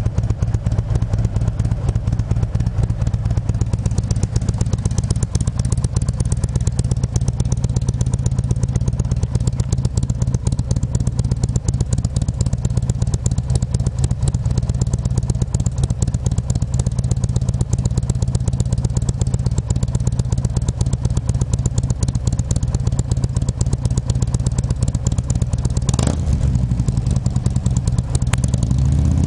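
Harley-Davidson Ultra Classic's Fuel Moto 107-cubic-inch V-twin, with Wood TW-555 cams and a Jackpot 2-1-2 exhaust with 3.5-inch slip-on mufflers, idling steadily, heard from behind at the mufflers. A single sharp click comes near the end, and the revs start to rise at the very end.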